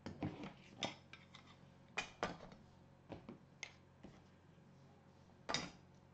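Faint, scattered clicks and taps of small objects being handled on a work table, about ten in all, the loudest about two seconds in and again near the end.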